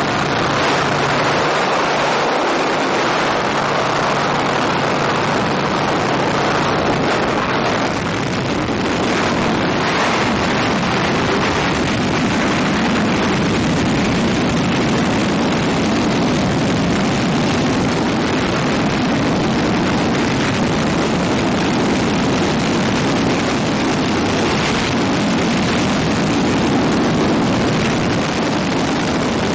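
Freefall wind rushing over a skydiving camera's microphone, loud and steady. A faint steady hum, likely the jump plane's engine, fades out about seven seconds in.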